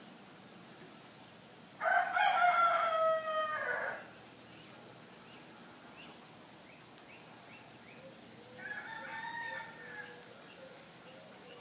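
A rooster crowing: one loud crow of about two seconds starting about two seconds in, then a second, fainter crow a few seconds later.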